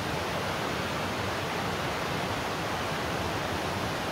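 Steady rushing noise, an even hiss with no distinct events.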